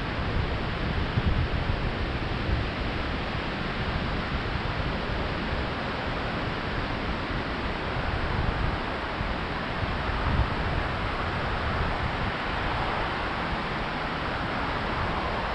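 Steady wash of Pacific surf breaking along a wide flat beach, with wind rumbling unevenly on the microphone.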